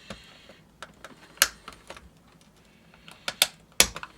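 The plastic housing of a Honeywell H450EN carbon monoxide detector being handled and fitted back together: a string of small, sharp clicks and taps, the loudest about a second and a half in and again near the end.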